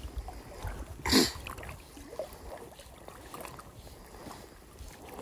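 Water lapping around a belly boat while wind buffets the microphone with a low rumble. One brief, louder splash-like sound comes about a second in.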